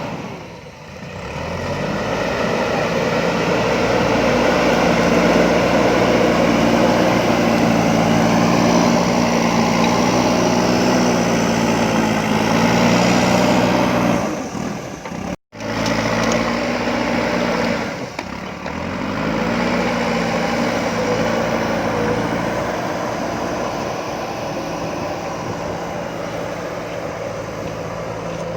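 JCB backhoe loader's diesel engine running hard. It revs up near the start and again after a sudden break about halfway through.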